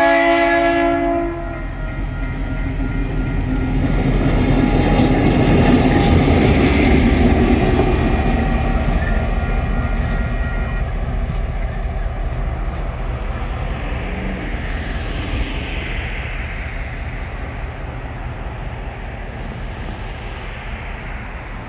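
TasRail diesel locomotive 2054 running light engine over a level crossing. Its horn chord cuts off about a second in, then the engine and the clickety-clack of the wheels swell as it passes and slowly fade away. A steady level-crossing warning bell rings until about eleven seconds in.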